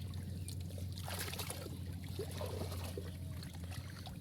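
Water splashing and trickling in irregular bursts, strongest about a second in, over a steady low hum.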